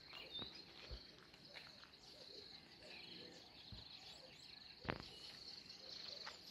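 Faint, steady high-pitched trilling of crickets, a fast even pulsing that never lets up. A few soft knocks and one sharper click about five seconds in break over it.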